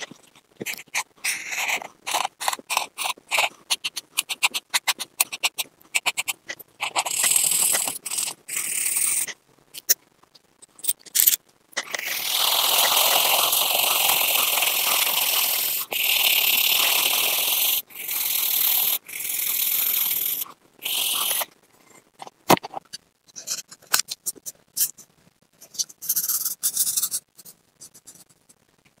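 A felt-tip pen scratching on paper while drawing: many short quick strokes, then several seconds of continuous back-and-forth scribbling as an area is shaded in, then short strokes again.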